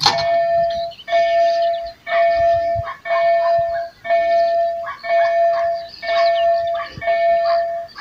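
Railway level-crossing warning sounder, an EDG-2000 electronic signal played through Tonsil horn loudspeakers, sounding a repeated electronic tone about once a second, each tone held nearly a second with a short gap between. It warns that the crossing is closed for an approaching train. A sharp knock comes right at the start.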